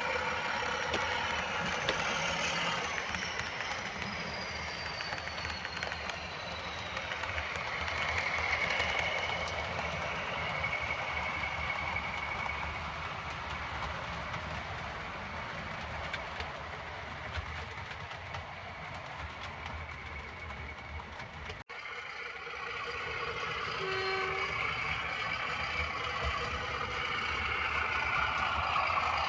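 Model railway train running on the layout, with the diesel engine sound effects of a sound-fitted model locomotive mixed with the running noise of the train. The sound cuts out suddenly for an instant about two-thirds of the way through.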